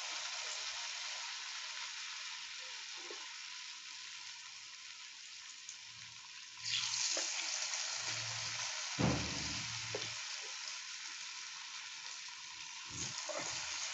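Masala-coated potato slices deep-frying in hot oil in a kadai, a steady sizzle. It jumps louder about six and a half seconds in as another slice goes into the oil, and swells again near the end.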